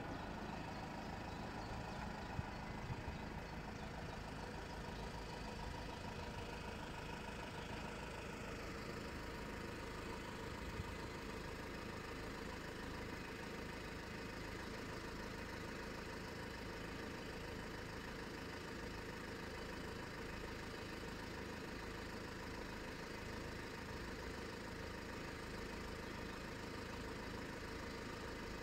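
Steady low engine hum of road vehicles idling, with a few faint knocks in the first few seconds and one about eleven seconds in.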